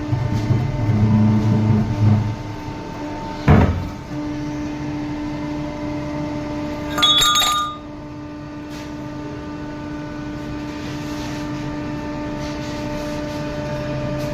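Broaching machine running with a steady hum. A heavy knock comes about three and a half seconds in, and a ringing metal-on-metal clink about seven seconds in.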